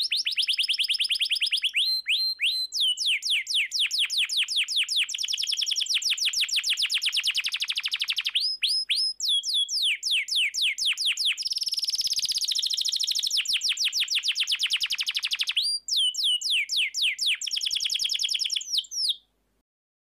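Domestic canary singing: long runs of rapid, high-pitched trilled notes, broken by a few short pauses, ending abruptly shortly before the end.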